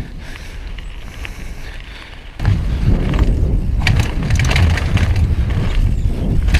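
Downhill mountain bike riding, heard through a GoPro microphone: fairly quiet tyre rolling on a gravel path, then from about two and a half seconds in a loud rumble of wind on the microphone and rapid clattering and rattling of the bike over a rough dirt trail.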